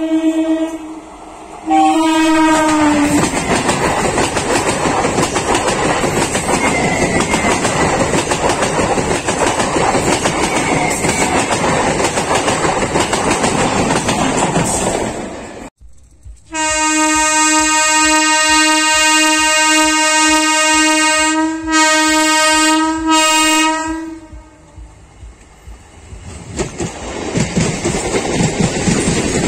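Indian suburban electric multiple-unit trains passing close by. Two horn blasts near the start, the second falling in pitch as it ends, then about twelve seconds of the coaches' steady rumble and clickety-clack. After a break comes a long horn held for about seven seconds, with a few short gaps near its end, and the coaches' rumble builds again near the end.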